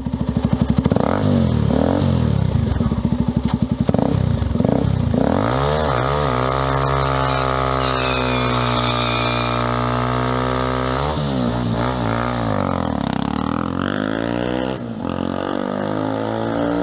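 Irbis (Shineray) Z1 250's single-cylinder engine being revved in short throttle blips while the bike stands, then held at high revs for several seconds. It then rides off, the engine note sweeping up and down through the gears.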